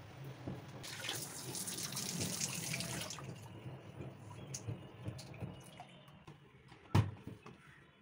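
LG front-loading washing machine tumbling a soaked plush teddy bear: water sloshing in the drum over a steady low motor hum, with a rush of water about a second in that lasts a couple of seconds. A single sharp knock near the end is the loudest sound.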